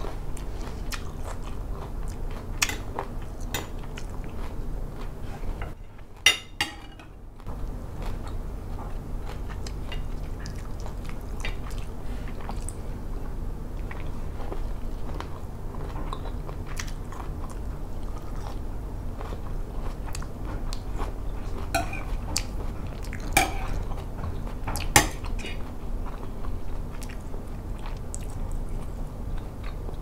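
Metal spoon and fork clinking and scraping against a ceramic plate while a person eats a squid salad, with chewing in between. There are scattered sharp clinks, the loudest a few near the end.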